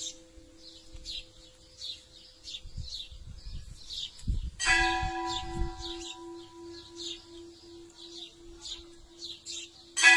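Church bell tolling for a death: single strikes about five seconds apart, each left to ring on with a steady, long-lasting hum. A bird chirps over it again and again.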